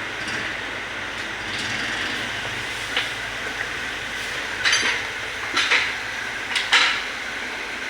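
Steady mechanical running noise, with several short, sharp clicks or clanks in the second half.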